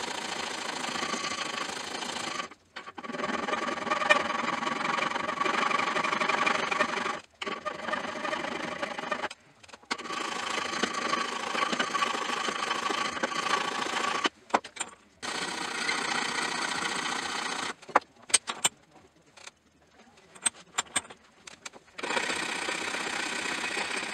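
Hand file rasping against a brass hinge leaf clamped in a bench vise, in runs of quick strokes a few seconds long with short pauses between them. About three-quarters of the way through, the rasping gives way to a few sharp clicks and taps of metal, then the filing resumes.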